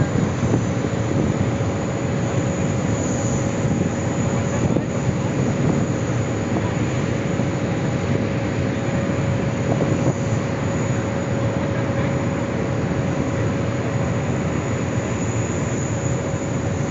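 Jet airliner's engines heard from the ground during a display flight: a steady, even rushing noise with no letup.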